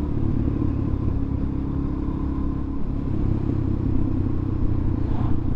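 Suzuki DR-Z400 supermoto's single-cylinder four-stroke engine running steadily on the move, with wind rush over it; the engine note changes about three seconds in.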